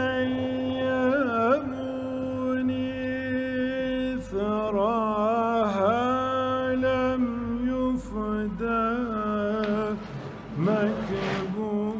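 Soundtrack music: a solo male voice singing a slow, wordless, ornamented chant in long held notes over a low steady drone, breaking briefly about four seconds in and again near ten seconds.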